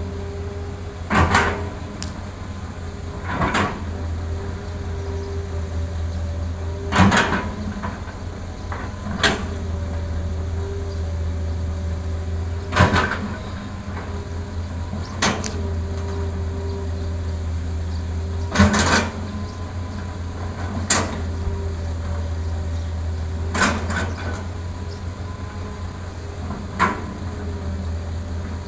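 Hitachi ZX200 excavator's diesel engine running steadily under load while it digs and loads dirt. About ten sharp clanks and knocks come every two to three seconds as the bucket works the pile and the dump truck's steel bed.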